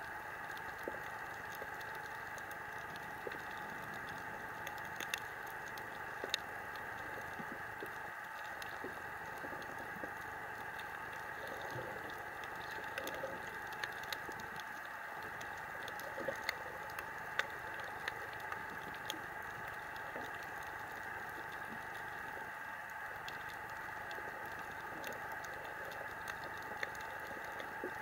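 Underwater ambience on a coral reef: a steady hiss with many small, irregular clicks and crackles, the crackle of snapping shrimp.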